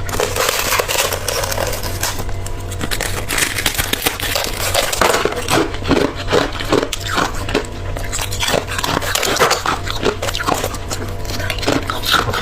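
Background music over many short, sharp crunches and crackles of frozen ice, which come thicker and faster after about five seconds.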